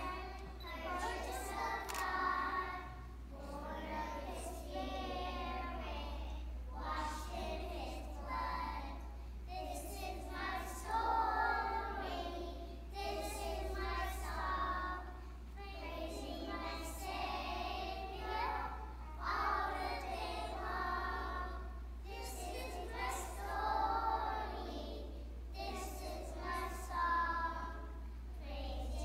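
A group of young preschool children singing together, phrase after phrase with short breaks between lines.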